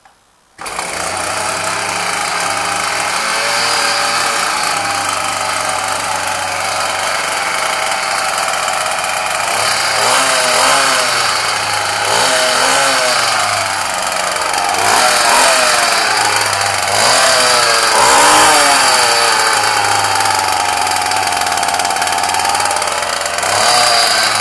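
Ryobi two-stroke engine catching on a recoil pull about half a second in, then running on its own, with the revs rising and falling several times midway through. This is a hard cold start that the owner puts down to stale fuel.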